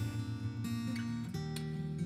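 Background music: a guitar piece of sustained notes, with the notes changing twice.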